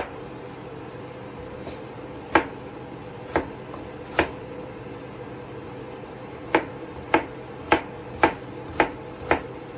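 Kitchen knife chopping peeled potatoes into pieces on a plastic cutting board: ten separate knocks of the blade striking the board. They come singly and irregularly at first, then in a quicker run of six, about two a second, near the end, over a steady low hum.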